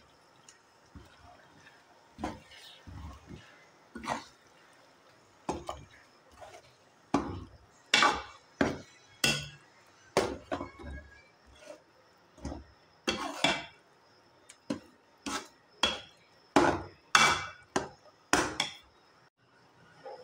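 Steel spoon stirring a thick tomato and pumpkin masala in an aluminium pot, knocking and scraping against the pot's sides and bottom in irregular strokes, roughly one or two a second, some in quick pairs.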